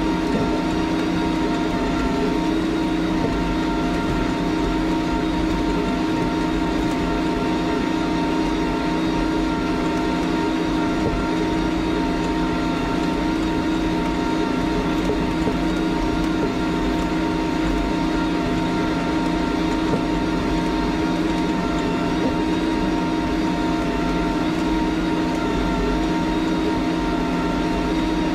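John Deere 8320R tractor's diesel engine running steadily under load, pulling a 637 disk harrow with rolling baskets through dry soil. It makes a constant drone with a steady whine on top.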